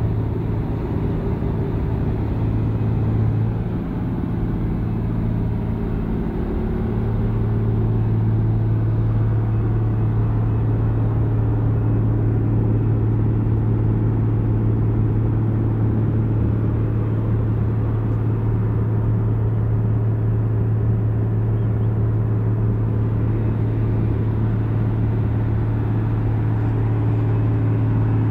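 Wirtgen 2 m cold milling machine running under load while milling road pavement deep: a steady deep diesel drone with the grinding of the cutting drum, dipping briefly about four seconds in.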